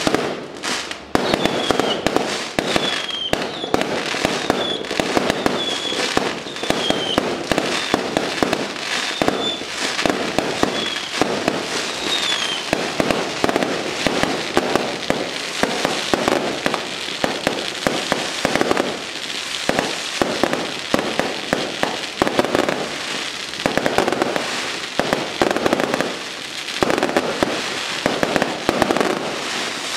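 Firecrackers going off in a long, dense, continuous crackle of bangs, with short high falling whistles in the first dozen seconds.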